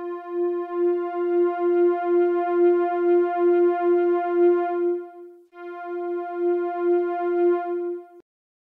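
Arturia OP-Xa V software synthesizer lead patch holding a single note that pulses about two and a half times a second. The note lasts about five seconds, is struck again after a brief break, and cuts off abruptly near the end.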